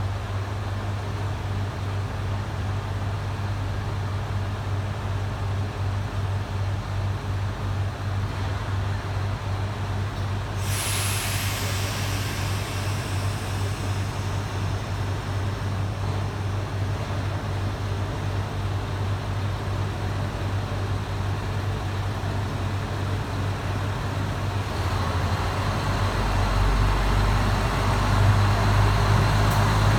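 Diesel engine of a TKT-8000 series railcar idling with a steady low drone. About a third of the way in comes a sudden hiss of air released from the brakes, and near the end the engine speeds up and gets louder as the railcar pulls away.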